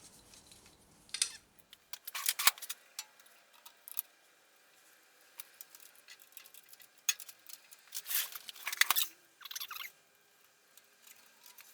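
Irregular metallic clinks, scrapes and knocks of steel lathe tooling being handled, as the tool post is taken off and the radius turner fitted. The knocks come in scattered clusters, the loudest about two and a half seconds in and again around eight to nine seconds in.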